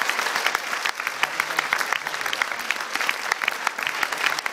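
Theatre audience applauding at the end of a play: many hands clapping in a dense, steady patter.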